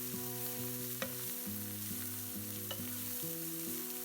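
Food sizzling steadily in a frying pan, with a couple of sharp clicks of a utensil against the pan as it is stirred.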